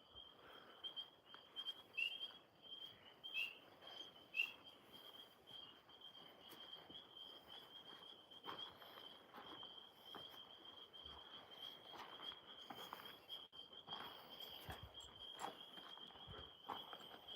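Faint, steady high-pitched trill of an outdoor night chorus, unbroken throughout, with a few short falling chirps about two, three and a half and four and a half seconds in, and scattered soft rustles.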